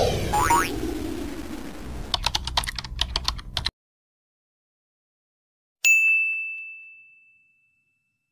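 Edited intro sound effects: a loud sweep falling in pitch, then a quick run of key-click typing sounds, then a single high bell ding that rings out for about a second and a half.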